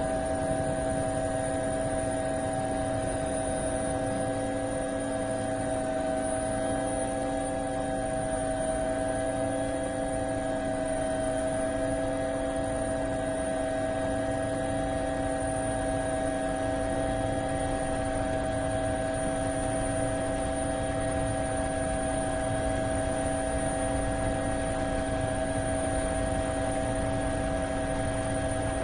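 DJI Phantom quadcopter's motors and propellers whining steadily, heard from the camera on the drone itself: a constant buzz of several tones that waver only slightly in pitch.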